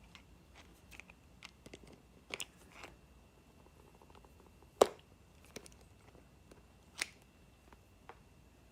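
Plastic replacement golf spikes being twisted into the sole's receptacles, with scattered small plastic clicks and crackles; a sharp click about five seconds in and another about two seconds later, as a spike snaps into place.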